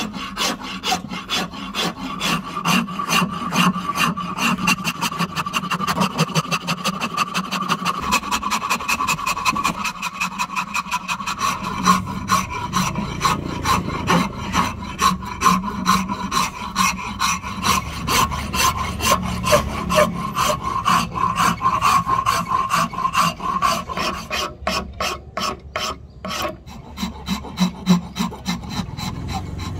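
Steel hand file rasping back and forth across a block of ebony wood held in a vise, in a steady run of repeated scraping strokes, shaping the blank of a hammer handle.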